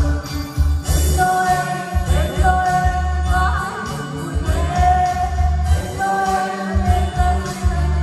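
A group of men and women singing a Christmas song together along with a karaoke backing track that has a steady bass beat.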